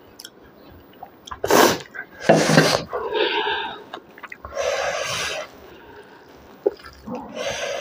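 A person sniffing and breathing sharply close to the microphone while eating, about five loud noisy breaths in a row after a quiet first second or so.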